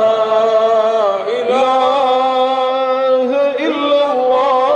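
A male Quran reciter's unaccompanied voice holding long, drawn-out melodic notes in the Iraqi maqam style of recitation. It moves to a new note about a second and a half in and makes a brief ornamented turn about three and a half seconds in.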